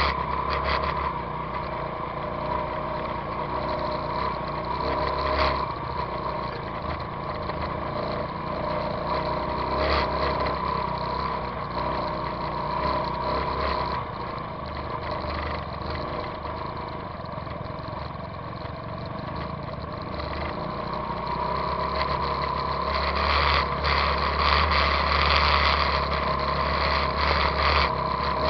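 A dirt bike's engine running steadily at low speed over a rocky trail, with knocks and rattles from the bike jolting on the stones. It grows louder and busier with knocks in the last few seconds.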